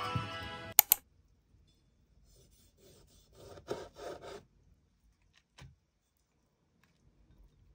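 A kitchen knife sawing through cherry tomatoes on a plastic cutting board: a run of short rasping strokes between about two and four and a half seconds in, and a light tap a little later. Two sharp knocks about a second in are the loudest sounds.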